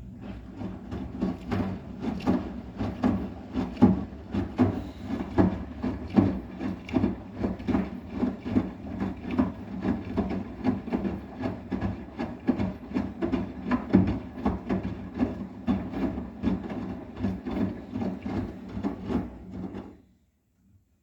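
Arçelik 9120M washing machine drum turning with a wet blanket inside: a steady motor hum under irregular thuds and swishes of the load, about two or three a second, cutting off suddenly near the end.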